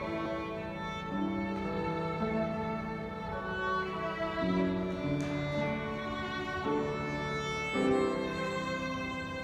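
Violin played with the bow: a slow melody of held notes.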